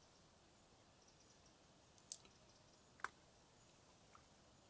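Near silence with a faint steady hiss, broken by two sharp clicks about two and three seconds in and a fainter third near the end.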